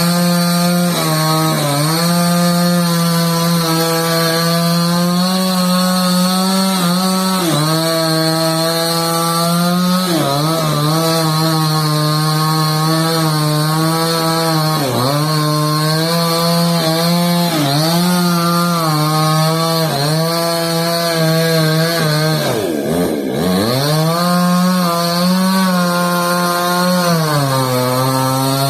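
Petrol chainsaw engine running at high revs, its pitch dipping briefly and recovering every second or two, with one deeper drop and climb back about three-quarters of the way through. The chain adds a steady high whine.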